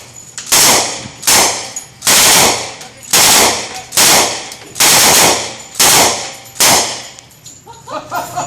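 Thompson submachine gun firing about eight short bursts of .45 ACP automatic fire, roughly one a second, each burst lasting under half a second.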